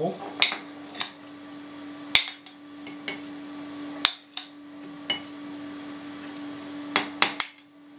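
A metal spoon clinking against a ceramic plate and the rims of earthenware pots as fried potato cubes are spooned into the pots, about ten sharp clinks at uneven intervals. A steady low hum runs underneath.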